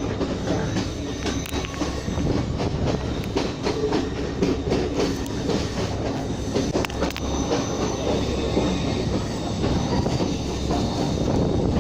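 Passenger train running along the track: a steady rumble with wheels clattering over the rails and a faint high metallic squeal from the wheels.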